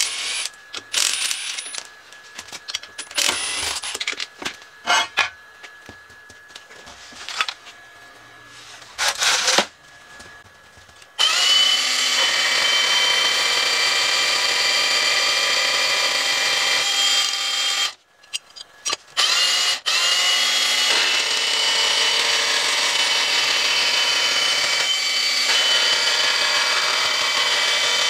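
Clicks and knocks of handling parts with a few short bursts of a cordless power tool, then a Milwaukee cordless portable band saw running steadily and cutting steel plate, a loud whine with grinding from the blade. About two-thirds through it stops briefly twice and starts again.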